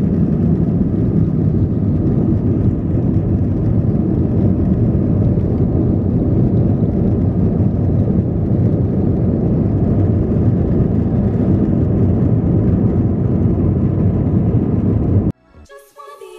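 Steady low rumble of a travelling vehicle's engine and motion noise, cutting off abruptly near the end.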